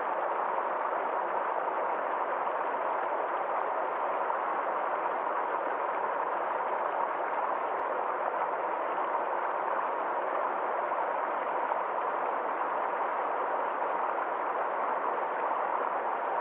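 Forest stream flowing, a steady, even rush of water.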